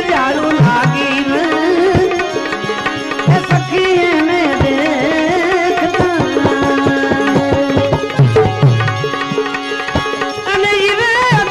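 Gujarati devotional bhajan music: tabla strokes, with deep bass-drum booms and sharp slaps, under a continuous wavering, ornamented melody line.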